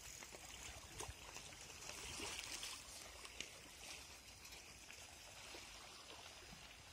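Faint, steady lapping and trickle of small lake waves against shore boulders, with a couple of soft knocks.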